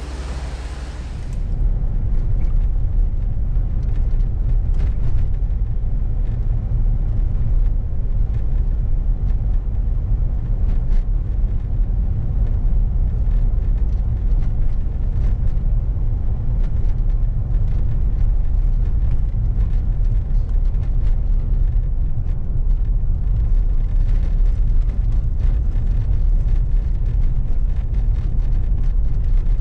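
Car driving, with a steady low road and engine rumble inside the cabin that sets in about a second and a half in, after a brief hiss.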